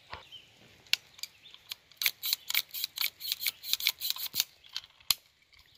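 Ruger Wrangler single-action .22 revolver being unloaded and reloaded by hand: a run of sharp metallic clicks as the cylinder is turned chamber by chamber, several clicks a second through the middle of the run.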